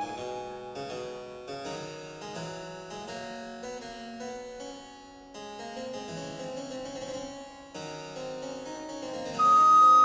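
Harpsichord playing a passage alone, many quick plucked notes moving in steps. Shortly before the end, a wooden recorder comes back in on a loud, long high note over it.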